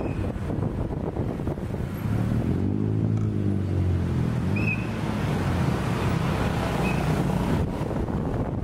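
Street traffic on a wet road: car and motorcycle engines running with a steady rumble and tyre hiss. One vehicle passes close about two to four seconds in, its engine note rising and then falling away.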